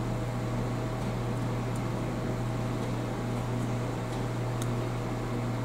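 Steady low mechanical hum of room background noise, with a faint steady higher tone over it. A single faint tick comes about four and a half seconds in.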